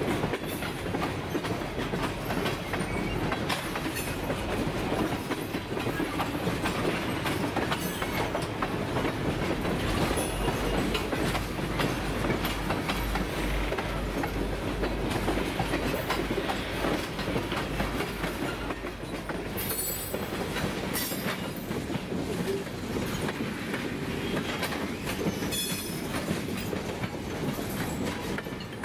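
Freight cars (tank cars and a covered hopper) rolling steadily past at low speed, steel wheels clicking over the rail joints above a continuous rumble.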